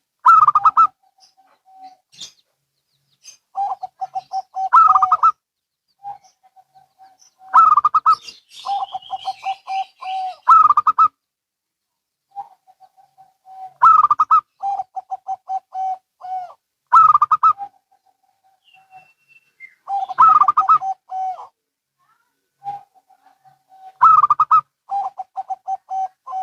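Zebra doves (perkutut) cooing and answering each other: about eight phrases a few seconds apart, each a couple of louder, higher notes followed by a quick run of short, lower coos.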